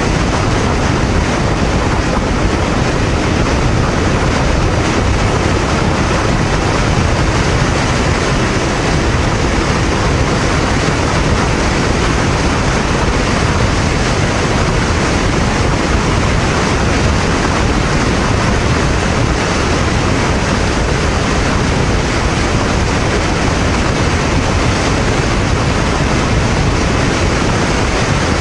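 Honda VTR250 V-twin motorcycle cruising at about 115–120 km/h: a steady, loud rush of wind and road noise with the engine running under it.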